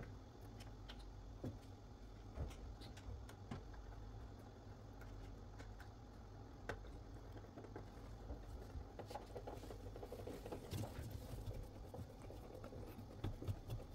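Screwdriver turning the screw of a worm-drive hose clamp on a washing machine's corrugated rubber drain hose, with faint, irregular clicks and scrapes as the clamp is tightened.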